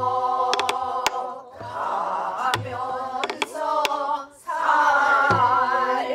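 A group of voices sings a Korean folk song together in held, wavering notes. A buk barrel drum accompanies them with sharp stick clicks and low, dull thumps.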